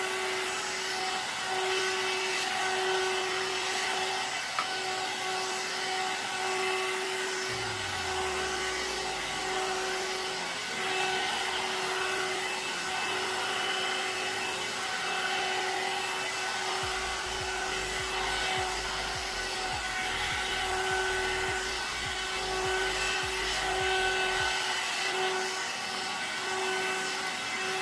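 One-step hot air brush (hair dryer and styler) running steadily: an even fan whir with a steady motor whine.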